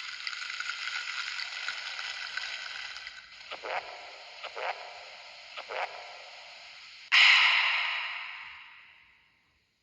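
A built-in Samsung SGH-D500 phone tone playing: a sustained electronic texture with three short downward swoops through the middle. About seven seconds in, a sudden loud burst comes in and fades away over about two seconds.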